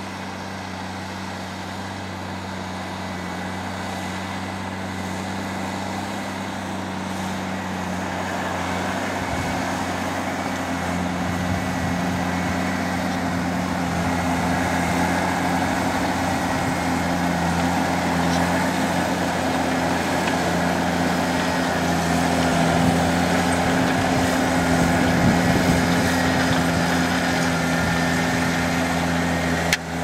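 Fendt Vario 820 tractor's six-cylinder diesel engine running steadily under load while pulling a five-furrow plough through wet ground, growing steadily louder as it draws nearer.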